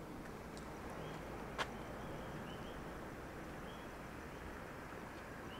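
Night ambience: coquí frogs calling, short high chirps repeating every half second or so over a steady background hiss. A single sharp click about a second and a half in.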